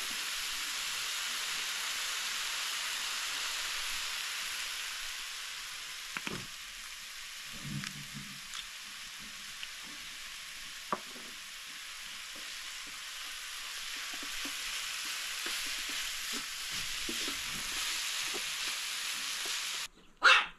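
Minced meat with carrot and onion frying in oil in a pan: a steady sizzling hiss with a few light clicks. Near the end the sizzle cuts off suddenly and a wooden spatula knocks loudly against the pan.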